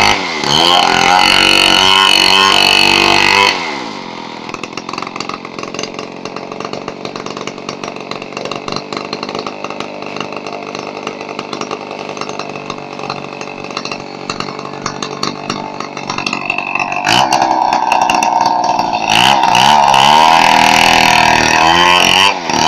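Two-stroke chainsaw running at high revs, then dropping suddenly to a lower, quieter running about three and a half seconds in. It revs back up with its pitch rising and falling near the end and runs loud again.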